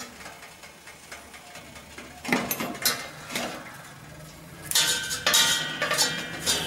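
Metal utensils knocking and scraping against a stainless-steel steamer pot as the cloth of steamed noodles is lifted off it. There are a few single ringing knocks in the middle, then a quicker run of clatter near the end.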